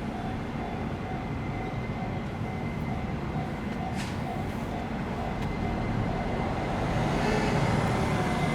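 Level crossing warning alarm ringing with an evenly repeating tone over the low rumble of the KD60 diesel locomotive. The rumble grows louder about seven seconds in as the train comes closer, and there is a single sharp click about four seconds in.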